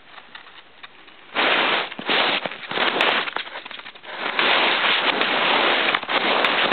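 A hamster's long claws scratching and skittering across a sheet of paper, a rapid crackly rasping that starts about a second and a half in and comes in loud spells.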